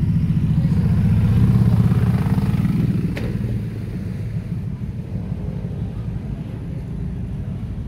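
City street noise dominated by a low rumble, loudest during the first three seconds and then easing, with a single sharp click about three seconds in.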